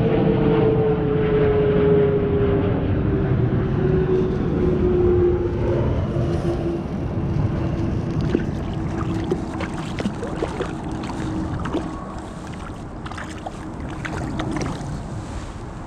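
A passing engine drone: one steady tone that slowly falls in pitch while the sound fades away. Scattered sharp clicks come in during the second half.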